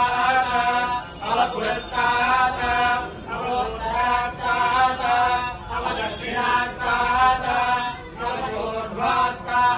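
Sanskrit mantra chanting in a Ganesha worship ritual, recited on a steady pitch in phrases of one to two seconds with brief breaks between them.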